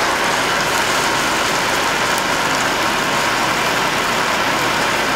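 Diced onion and tomato with a chile-garlic paste sizzling steadily as they fry in a skillet over a gas flame.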